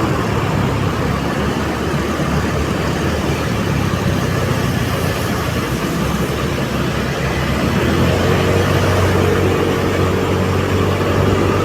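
Steady engine and road noise of a motor vehicle being driven.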